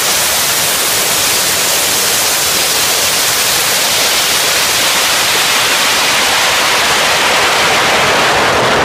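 Steady, loud rush of air over a smartphone taped to the side of a climbing model rocket, heard as a continuous even hiss.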